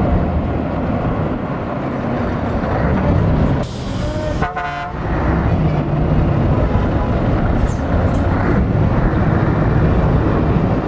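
Diesel engines of Scania tractor units running as they pull out one after another. Just under four seconds in comes a short hiss of air, followed at once by a brief truck horn toot.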